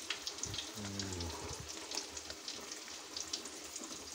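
Cassava-leaf curry in coconut-milk gravy bubbling in a metal pot as it comes to the boil, stirred with a metal ladle: a steady hiss of bubbling with many small clicks and scrapes.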